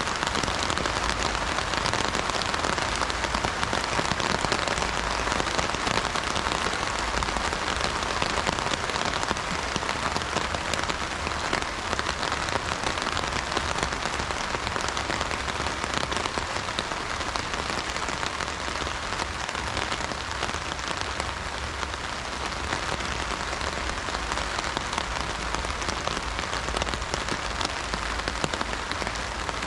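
Heavy rain drumming steadily on an umbrella, a dense patter of drops without thunder.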